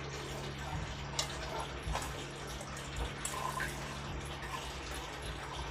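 Steel spoon stirring oily chopped raw mango and spice paste in a stainless steel bowl while mixing mango pickle: a wet, squelching stir with a few sharp clinks of spoon on bowl.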